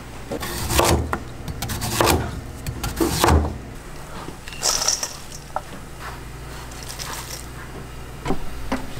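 Kitchen work noise: three loud scraping knocks about a second apart, then a few lighter clicks, over a steady low hum.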